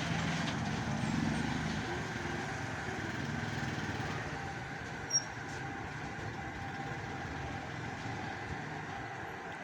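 Steady background noise of road traffic, with a single small click about five seconds in.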